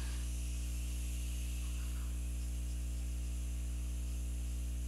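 Steady electrical mains hum with a low buzz and faint hiss, unchanging throughout; no distinct brush or paper sounds stand out.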